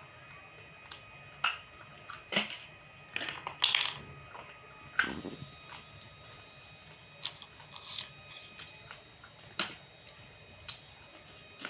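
Roasted multani mitti (fuller's earth clay) crunching in a series of sharp, irregular cracks, clustered and loudest about four seconds in, then sparser and lighter.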